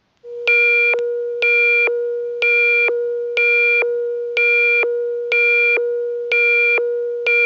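Electronic emergency-alert attention tone: a steady pitched tone held throughout, with a higher, buzzy beep pulsing on top about once a second, eight times. It announces an emergency broadcast message.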